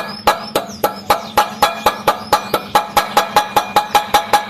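Rapid, even hammer blows on metal, about four to five a second, each with a short ringing. This is the sound of an old bushing being knocked out of a motorcycle wheel hub so a new bearing can be fitted.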